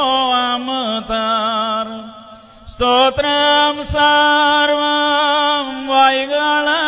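Syriac Orthodox liturgical chant: one sung melodic line with long held notes, ornamented with wavering turns. It breaks off a little after two seconds in and resumes just before the three-second mark.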